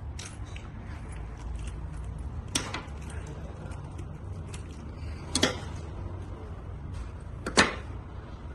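Hands working wire connections at a truck alternator's terminals: three sharp clicks spread over several seconds, the last the loudest, over a steady low hum.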